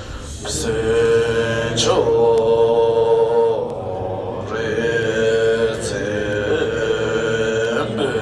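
A man chanting a Tibetan Buddhist sadhana liturgy in long held tones, each phrase sustained on one pitch. The voice breaks and drops in loudness about halfway through before the next long held phrase.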